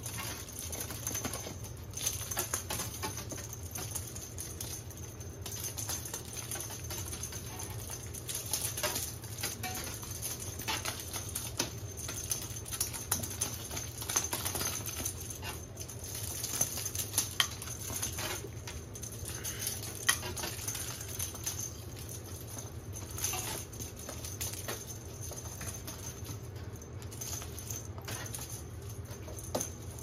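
Kittens scampering and pouncing on a hard floor while chasing a feather teaser: many light, irregular taps and scuffs of small paws.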